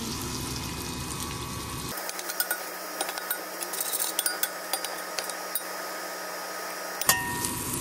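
Small anchovies and cherry tomatoes sautéing in oil in a stainless-steel pan, a steady sizzle, while a metal spoon stirs them, clinking and scraping against the pan with scattered sharp clicks through the middle.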